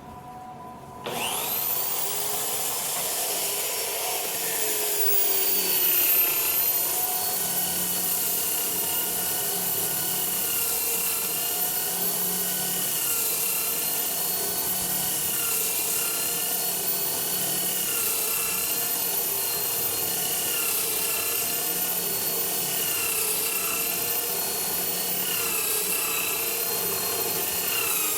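Electric drill converted into a sander starting up about a second in, its motor whine rising, then running steadily with fine-grit sandpaper rubbing on wood. The motor pitch wavers slightly now and then as the sandpaper bears on the wood.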